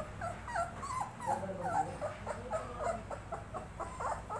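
Young puppies crying: a quick run of short, high cries that bend up and down in pitch, several a second.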